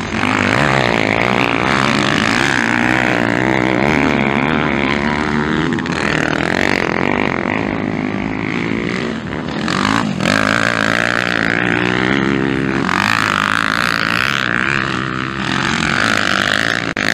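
Four-stroke motocross bike engines revving hard through a corner, the pitch rising and falling again and again as the riders work the throttle.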